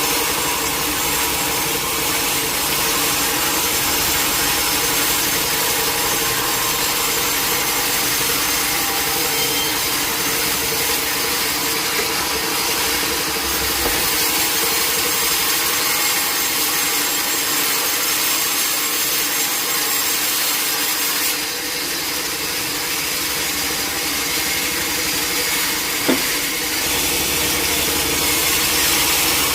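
Sawmill saw running and cutting through a large teak log: a steady, unbroken sawing noise over a constant machine hum. A single short knock sounds about 26 seconds in.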